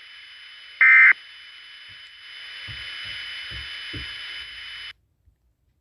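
Emergency Alert System end-of-message data burst: the last of three short, shrill digital chirps, about a second in, over a steady hiss. The hiss then grows louder with a few low thumps and cuts off suddenly near the end.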